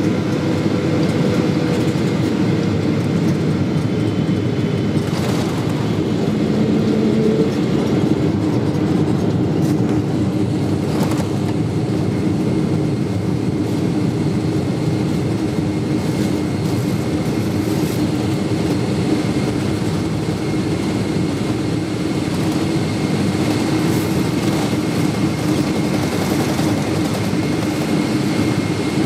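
Steady cabin rumble of a Boeing 777-300ER rolling along the runway after landing, heard from inside the cabin: the GE90-115B engines hum with a few steady tones over the noise of the wheels and airflow.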